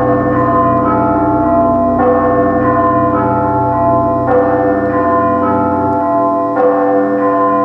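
Music of bell-like chimes struck roughly once a second, every other stroke stronger, ringing on in sustained tones over a low drone that drops out about six seconds in.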